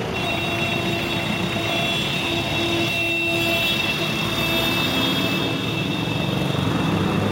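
Busy street traffic, with a jeepney, cars and motorcycles passing close by: a steady engine and road rumble, with thin, high whining tones held over it.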